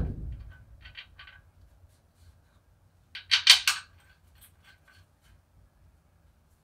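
Light metallic clicks and clinks of bolts with lock washers being started by hand into a transmission bell housing, with a louder cluster of clinks about three and a half seconds in.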